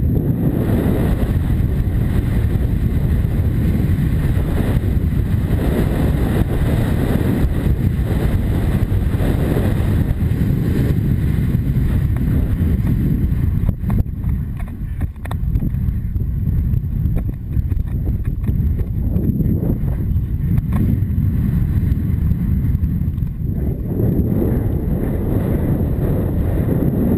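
Wind buffeting a helmet camera's microphone as a horse is ridden at speed across country, a heavy steady rumble that eases briefly about halfway through.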